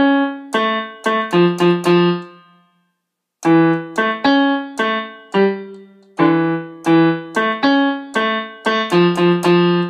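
Piano keyboard playing a simple tune, a note or two at a time at two or three notes a second, in two phrases with a short pause about three seconds in.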